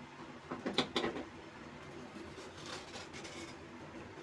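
Steel spoon scraping and scooping pulp out of the hard shell of a halved bael (wood apple): a cluster of clicks and scrapes about a second in, then fainter scraping.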